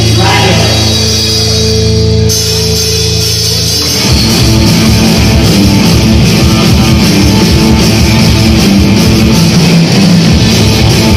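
Live rock band with electric guitars and a drum kit playing loud: a held chord rings for about four seconds, then the drums and the full band come in together with a steady beat.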